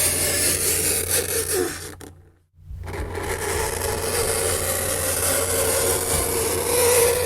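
Fingernails scraping on a chalkboard: a harsh, continuous scratching with a shrill squeal. It breaks off briefly about two seconds in, then starts again.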